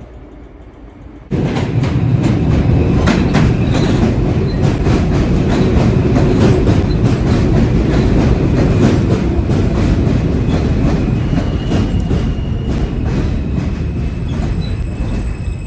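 New York City subway train running past, starting suddenly about a second in, loud, with wheels clicking rapidly over rail joints. A thin high whine joins in during the second half.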